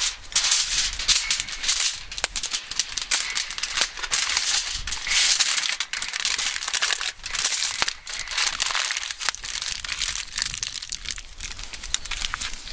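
Aluminium foil crinkling and rustling by hand as sweet potatoes are wrapped in it, in irregular bursts of crackly rustle.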